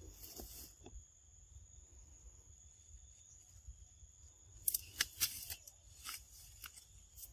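A steady high insect trill, with a few short bursts of crackling about five and six seconds in as leafy ground cover and stems are pushed through and snapped.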